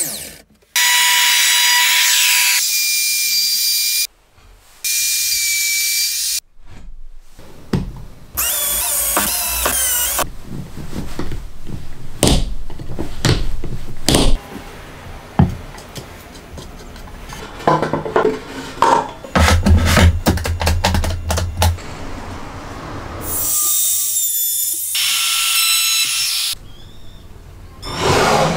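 Power drill boring into a wooden board in several runs of a few seconds each, its motor whining steadily. Between the runs come many short knocks, clicks and taps of wood and clamps being handled.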